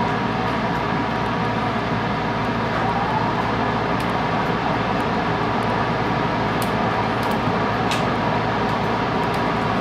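Steady hum of a stationary electric commuter train's onboard equipment, heard from just behind the cab, with several steady tones running through it and a few faint clicks.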